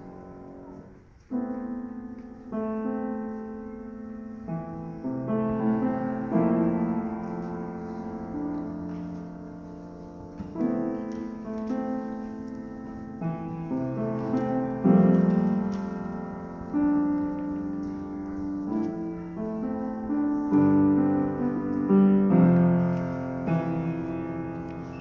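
Solo piano playing a slow recital piece in sustained, held chords, with a brief gap about a second in before the playing resumes.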